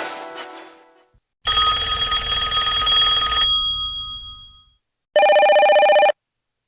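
Ringtones played through a Pantech Helio Ocean 2 phone's speaker. A musical ringtone fades out, then a noisy chime with ringing tones sounds for about two seconds and dies away. About five seconds in comes a one-second trilling, telephone-bell style ring that cuts off sharply.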